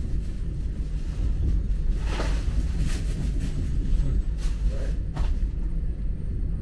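Chinese high-speed bullet train running, a steady low rumble heard inside the passenger car, with a few brief clicks.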